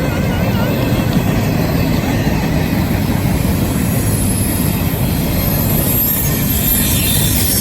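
Train passing close by: a loud, steady rumble of wheels on rails, with high-pitched wheel squeal growing near the end.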